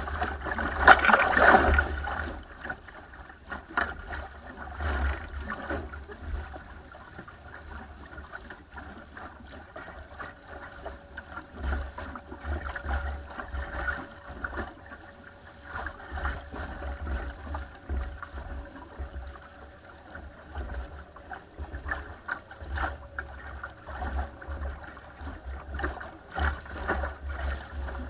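Water rushing and slapping along the hull of a small wooden sailing dinghy, with a loud splash over the camera in the first two seconds. Gusty wind rumbles on the microphone throughout.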